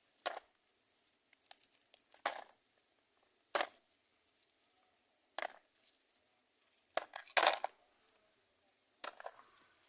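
Small stones dropped one handful at a time into a toy truck's load bed: about six short clattering knocks at irregular intervals, two close together near the middle.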